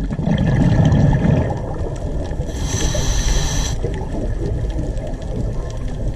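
Scuba diving recorded underwater: a low burst of bubbling from exhaled breath in the first second or so, then a hiss of the regulator for about a second, over a steady low rumble of water on the camera housing.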